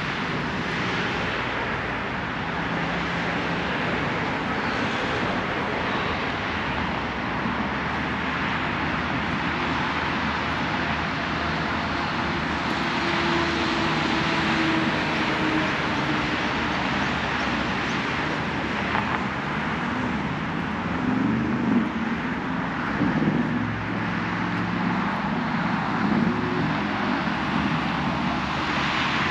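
Steady road traffic: cars passing on an adjacent road, a continuous wash of tyre and engine noise, with a louder vehicle going by about three quarters of the way through.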